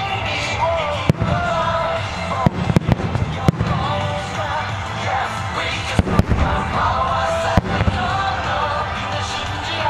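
Water-surface fireworks bursting over a lake: irregular sharp bangs with crackle and a low rumble, mixed with music carrying a melody.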